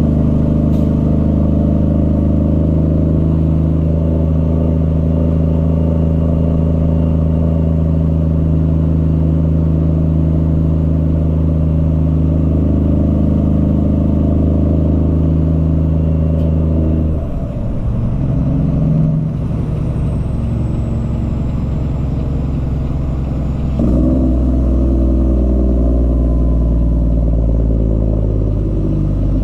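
Cummins ISX diesel engine of a Peterbilt 379 semi truck running under way with a steady drone. About 17 seconds in the note drops and wavers, and about 24 seconds in it steps back up to a steady pull.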